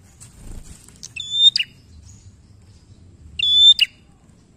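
Prenjak singing: two short, piercing high-pitched calls about two seconds apart. Each is a fast run of repeated notes ending in a sharp downward flick.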